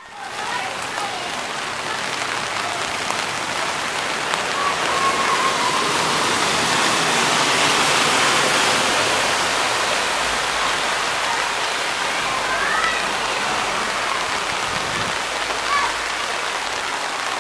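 Rain falling and floodwater running across a flooded street: a steady hiss, slightly louder around the middle.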